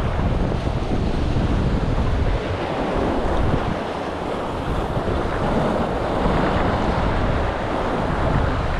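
Sea waves washing and splashing against the concrete blocks of a breakwater, with wind buffeting the microphone.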